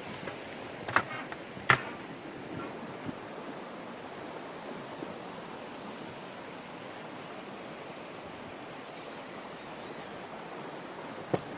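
Steady rushing of a river's water flowing below, with two sharp knocks about a second in and another near the end.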